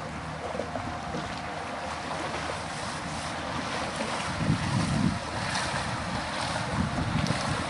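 Motorboat engine running steadily as a small tour boat crosses the harbour, over water and wind noise. A gust of wind buffets the microphone about halfway through.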